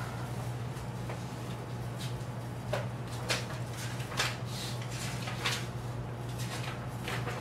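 Paper pages of a book being flipped through by hand: a handful of quick rustles from about two and a half seconds in, over a steady low hum.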